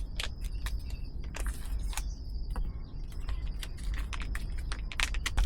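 Light, irregular clicks and taps of plastic food packaging and a plastic meal container being handled, over a steady low rumble.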